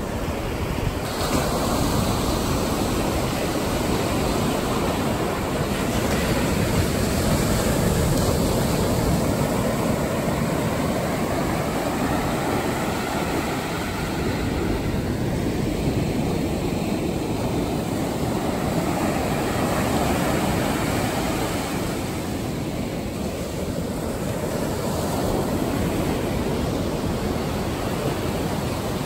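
Atlantic Ocean surf breaking close in and washing up over the sand: a steady rush of water that swells and eases slowly.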